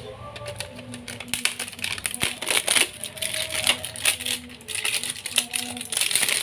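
Handling noise of a power amplifier kit circuit board being moved and fitted inside a metal amplifier chassis: a quick, irregular run of light clicks, taps and rustling.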